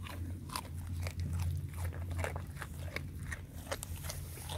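Goats crunching raw carrot strips: a run of short, sharp, irregular crunches several times a second, over a steady low hum.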